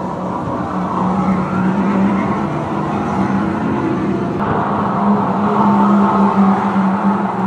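Electric go-karts running round a track, a steady motor whine mixed with tyre noise, which jumps louder and closer about four and a half seconds in.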